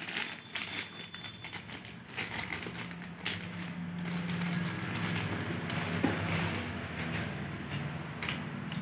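Plastic wrapping crinkling and rustling as it is pulled off a new telescopic fishing rod, with a sharp click about six seconds in.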